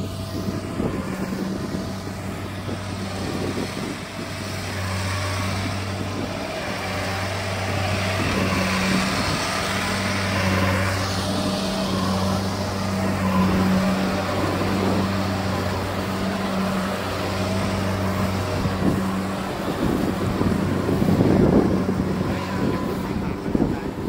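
Tracked rice combine harvester's engine running steadily with a constant low hum, growing louder as the machine passes close by. Wind buffets the microphone near the end.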